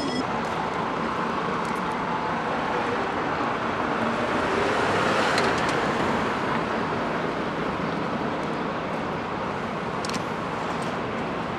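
City road traffic noise, with a vehicle passing that is loudest about five seconds in.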